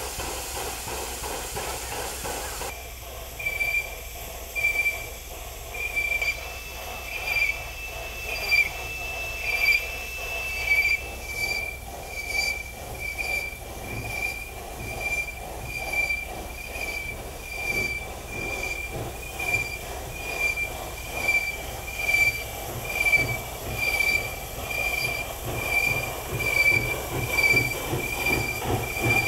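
Steady hiss at first, then a Japanese-built steam locomotive moving slowly, with a high squeal from its wheels repeating in a steady rhythm about once a second that quickens a little toward the end.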